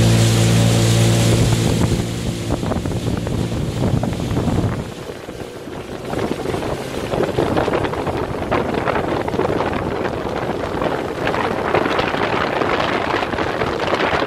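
Bayliner motorboat engine running with a steady drone for the first few seconds, then giving way to wind buffeting the microphone and rushing water.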